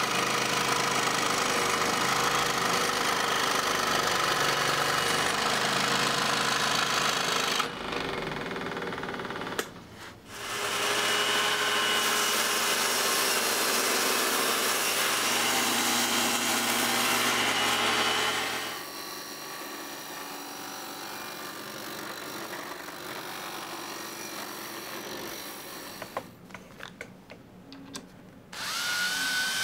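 Electric power tool running in long stretches: about seven seconds, a short break, another eight seconds, then quieter running with a few clicks, and a fresh start near the end.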